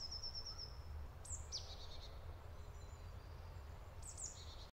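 Forest ambience: small songbirds chirping and calling, with a quick run of high repeated notes at the start and falling calls about a second and a half in and near the end, over a low steady rumble. The sound cuts off suddenly just before the end.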